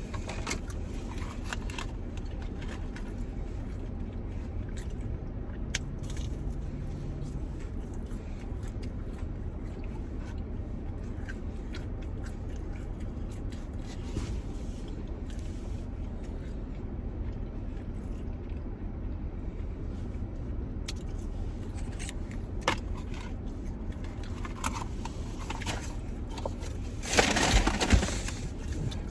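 Steady low hum of a car cabin with the engine running, under scattered small clicks and crunches of people eating fast food and handling its packaging, and a louder rustle about 27 seconds in.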